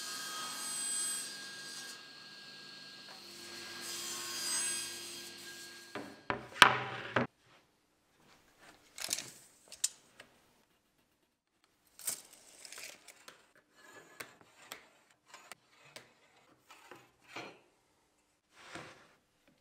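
A table saw running and cutting MDF, swelling twice as the workpiece is pushed through, then stopping. A loud clatter follows, then scattered short scrapes, taps and knocks of MDF boards being moved.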